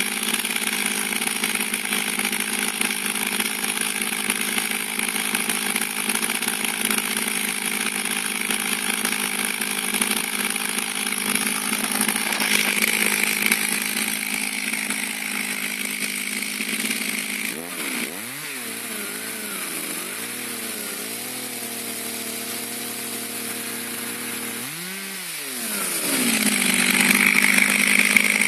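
Echo CS-3600 two-stroke chainsaw running at high revs. About two-thirds of the way through, it drops to idle with a few quick throttle blips, then settles at idle. Near the end, it blips once more and goes back up to high revs.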